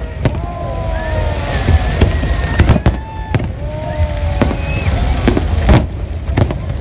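Aerial fireworks bursting overhead: an irregular series of sharp bangs, several close together about two and a half to three and a half seconds in, over a steady low rumble.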